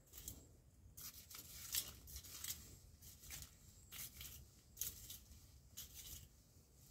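Faint, irregular scraping and rustling from hand work in a garden bed, in short scratchy strokes about two a second.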